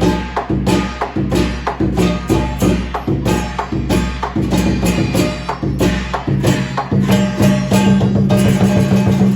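Southern Chinese lion dance percussion: the big lion drum, gong and clashing cymbals playing a fast, driving beat of repeated strikes.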